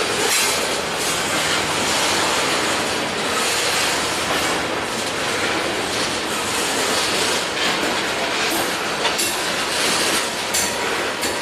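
Norfolk Southern freight train's cars rolling past, steel wheels clacking over rail joints in a steady run of rolling noise.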